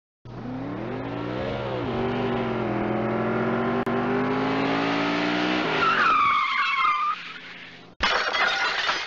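Sound effect of a car engine revving with its pitch climbing, then tires screeching about six seconds in and fading, followed by a sudden loud crash near the end.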